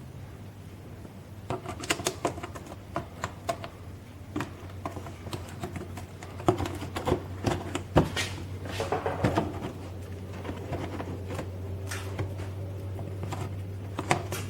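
Irregular clicks, taps and rattles of plastic underbody splash covers and their clips being handled and fitted back in place. They start about a second and a half in, over a steady low hum.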